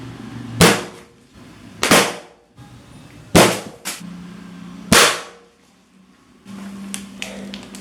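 Balloons bursting: four loud pops about a second and a half apart, with a smaller pop between the third and fourth.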